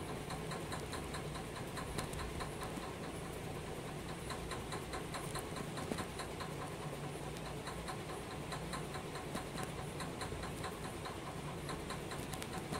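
Rapid, even ticking, about four to five ticks a second, over a low steady hum.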